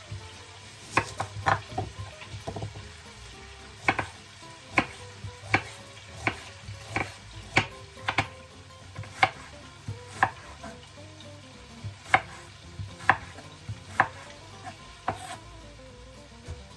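Santoku knife slicing a red onion on a bamboo cutting board: sharp knocks of the blade hitting the board, unevenly spaced at roughly one every half second to a second, starting about a second in.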